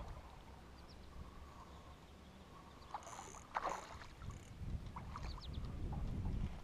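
A small hooked fish splashing at the water's surface beside an aluminum fishing boat, loudest about three and a half seconds in, followed by low knocks and clicks as it is lifted out on the line.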